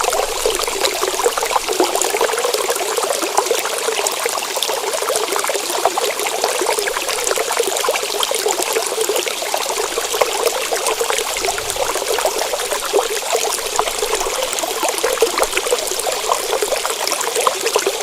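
Water running in a steady trickling stream.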